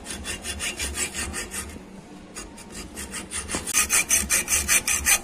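Hand hacksaw cutting through a short metal tube clamped in a vise: quick, even back-and-forth strokes of the blade rasping on the metal, louder in the last second or so.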